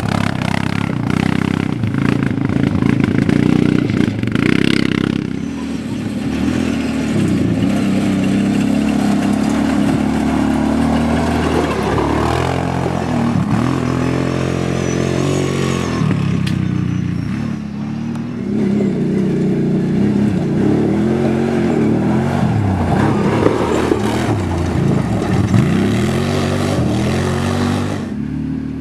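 Quad bike (ATV) engines revving on a rough dirt trail, the pitch rising and falling repeatedly as the throttle opens and closes.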